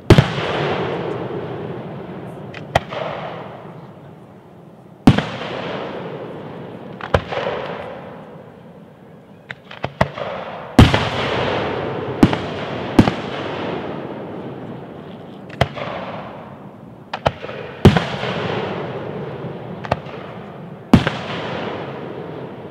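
Aerial fireworks going off: sharp bangs every one to three seconds at an uneven pace, each trailing away over a few seconds, several landing close together around the middle.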